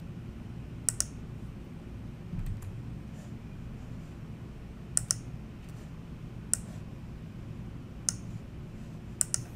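Five scattered, sharp computer clicks, each a quick double tick of a key or button pressed and released, over a low, steady room hum.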